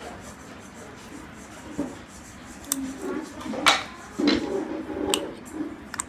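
Metal puzzle padlock being handled, its brass covers and parts rubbing and clicking. The clicks start about two and a half seconds in, with the sharpest just before the middle.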